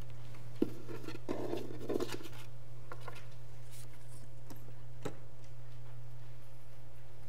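A steady low hum, with a sharp click about half a second in, a brief rustle about one to two seconds in, and a few faint ticks later.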